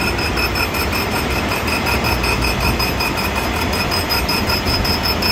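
Grinder attachment on a lathe running, its wheel spinning beside a large steel roll turning in the lathe: a steady high whine that pulses several times a second over a low machine rumble.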